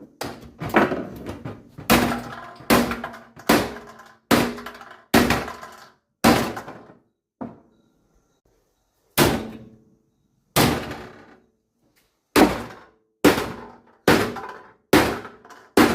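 A microwave oven door being struck hard again and again to break it open: about seventeen heavy knocks, each with a brief metallic ring. They come in quick runs with a pause of nearly two seconds around the middle. The blows are called a bit loud.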